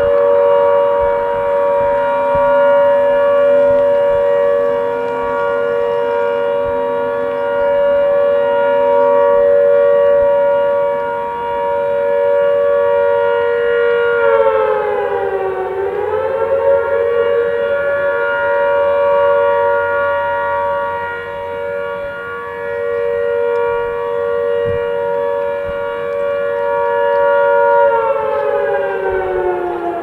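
Harland & Wolff shipyard siren sounding a loud, steady chord. About halfway through it dips briefly in pitch and climbs back. Near the end it begins to fall steadily in pitch as it winds down.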